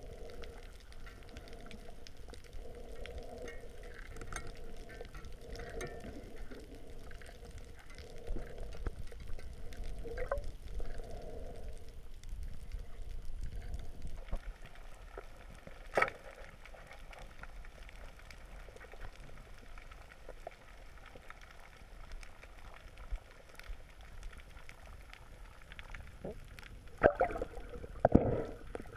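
Muffled underwater sound picked up by a camera in its waterproof housing: water movement and bubbling, with a sharp click about halfway through and a few louder knocks near the end.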